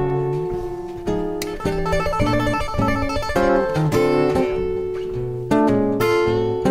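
Instrumental acoustic guitar music, a plucked melody over a stepping bass line.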